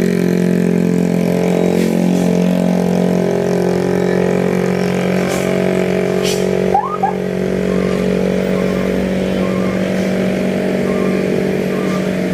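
Heavy vehicle's engine running steadily at one pitch as it climbs. About seven seconds in there is a short hiss and a brief rising squeak.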